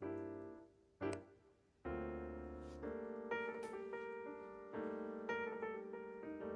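Background piano music: single notes and chords that sound and fade, cutting out briefly twice in the first two seconds.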